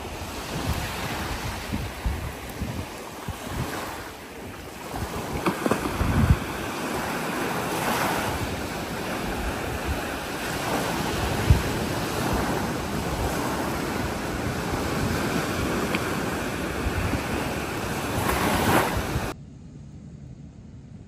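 Small waves breaking and washing up the sand, with wind buffeting the microphone in low thumps. The sound drops away abruptly near the end.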